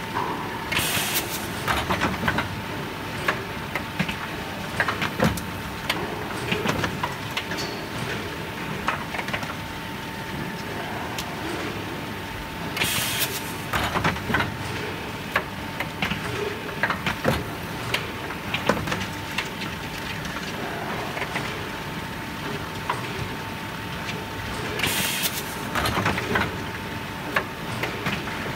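Pneumatic battery leak tester cycling: three short hisses of compressed air, about twelve seconds apart, as the probe head drops onto and lifts off a car battery. Throughout are frequent clicks and knocks from the conveyor and batteries, and a steady whine.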